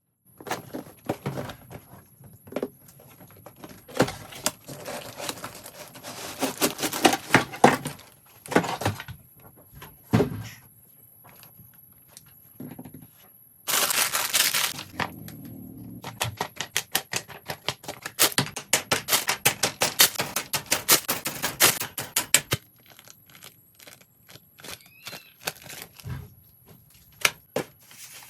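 Hands unboxing a Gundam plastic model kit: cardboard and plastic packaging handled in quick, irregular clicks and taps, with a burst of tearing about halfway through.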